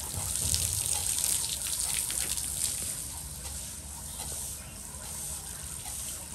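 Water from a garden hose gushing and splashing onto wet concrete, a steady hiss that eases slightly after about two and a half seconds.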